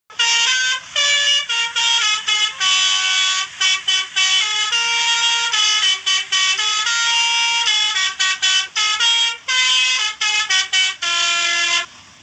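Basuri musical air horn, the Indonesian bus and truck 'telolet' horn, playing a melody: a run of loud short toots and held notes in changing pitches. It cuts off just before the end, leaving a faint engine hum.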